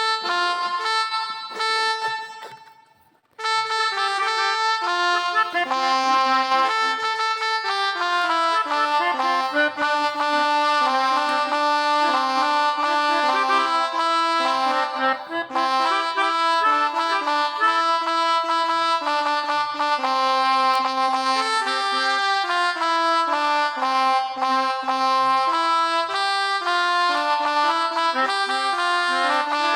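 Melodica (pianika) app on a mobile phone playing telolet bus-horn tunes: a run of held notes, often two at a time, stepping up and down. There is a brief break about three seconds in, then unbroken playing.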